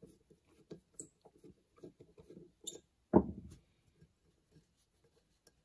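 Small clicks and scrapes of metal parts and a hand tool being worked on a carburetor body at a workbench, with one sharper knock about three seconds in.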